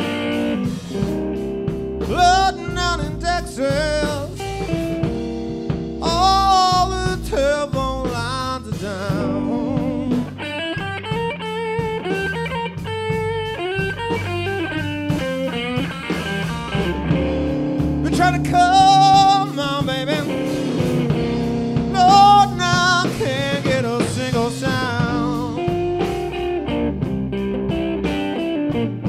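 A band with electric guitar, bass and drums playing a slow blues. Sustained lead notes with a wide wavering vibrato come in phrases over a steady backing.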